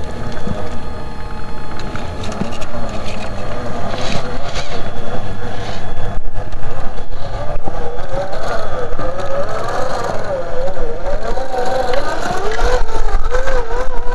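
Electric motor and geared drivetrain of a Traxxas TRX-4 RC crawler whining as it crawls up rock, the pitch wavering up and down with the throttle, with scattered knocks of the tyres on rock and dirt.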